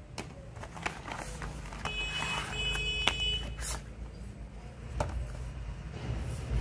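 Cardboard box and clear plastic tray of a power bank being handled and opened: scattered clicks, knocks and rubbing, with a steady high tone lasting about a second and a half near the middle.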